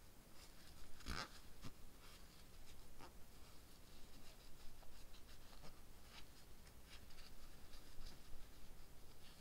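Lint-free nail wipe rubbing and pushing around a fingernail and its cuticle, clearing loose skin: soft papery scratching with scattered light clicks, the strongest about a second in.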